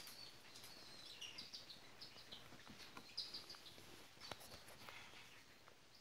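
Cockatiel chicks begging while being fed: a faint run of short, high-pitched squeaky cheeps, thinning out after about four seconds, with a couple of sharp clicks in the middle.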